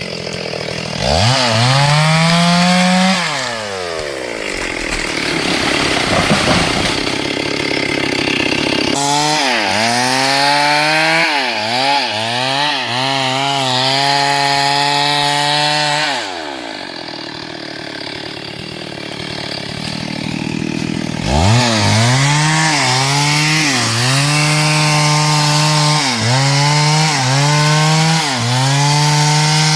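STIHL MS382 single-cylinder two-stroke chainsaw running at full throttle in hardwood, its pitch sagging and recovering as the chain loads up in the cut. It drops back toward idle twice between runs, and near the end the pitch dips about once a second.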